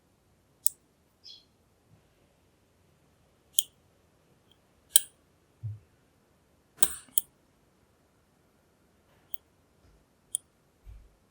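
Sharp metallic clicks and taps from lock picks and tension tool working a NEMEF NF4 dimple lock, about ten spread irregularly, with a couple of soft low thumps.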